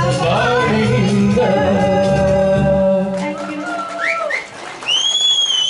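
A man and a woman finish a Kannada film-song duet into microphones over a karaoke backing track. The backing track and a held final note stop about three seconds in, leaving a few sliding sung notes. Near the end comes one long, high whistle.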